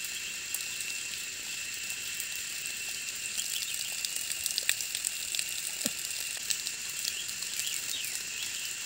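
A thin trickle of water running out of a bamboo pipe onto the ground, heard as a steady high hiss, with scattered light clicks and knocks as the pipe is handled.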